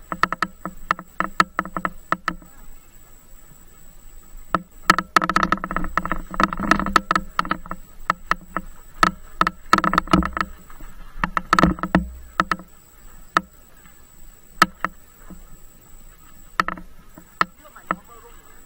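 Mountain bike clattering over a rough off-road trail: irregular sharp clicks and knocks from the bike's frame and parts, coming in dense rattling stretches and then thinning out.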